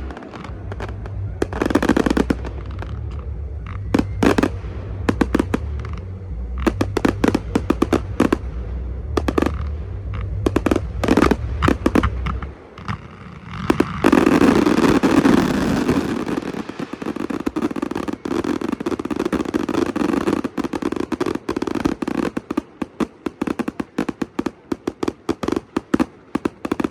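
Fireworks show's closing barrage of aerial shells bursting. There are many sharp reports over a low steady rumble at first, then a loud dense volley about halfway through. After that come rapid crackling pops that thin out toward the end.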